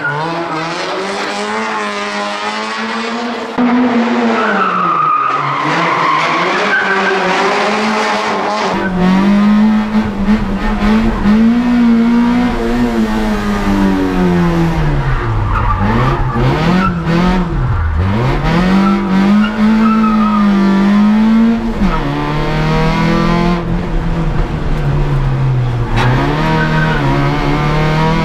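Citroën Saxo VTS rally car's four-cylinder engine revving hard, its pitch climbing and falling again and again with gear changes and lifts for corners. Later it is heard from inside the cabin, with a deep rumble underneath.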